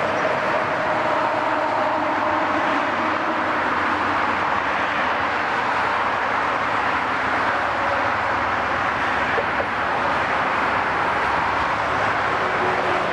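Steady, loud road traffic noise from cars on a main road, over the diesel engines of excavators and a dump truck at work.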